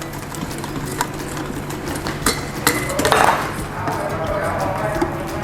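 A utensil stirring pancake batter in a mixing bowl, with irregular clinks and taps against the bowl.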